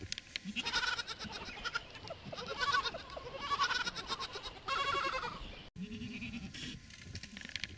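A herd of domestic goats bleating: about five wavering calls one after another, overlapping the faint murmur of the herd, with a lower call after a sudden cut near the end.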